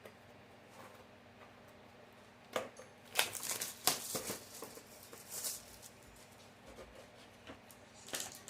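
Crinkling and crackling of trading-card packaging, foil booster packs and box cardboard, being handled, in a run of sharp bursts from about two and a half seconds in, after a quiet start.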